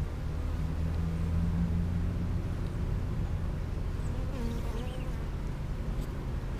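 Honeybees buzzing, a steady low hum that swells for a second or so about a second in.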